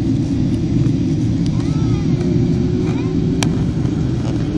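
Steady, loud low rumble of cabin noise inside a Boeing 767-300ER on descent: engine and airflow noise heard from a window seat. Faint voices are in the background, and a single sharp click comes about three and a half seconds in.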